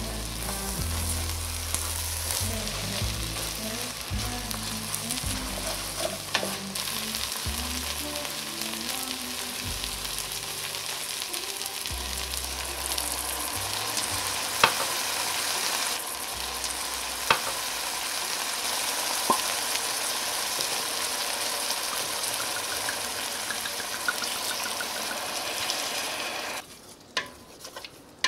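Onions frying and sizzling in a hot pan, stirred now and then, with a few sharp taps of a utensil against the pan. The sizzle cuts off suddenly near the end.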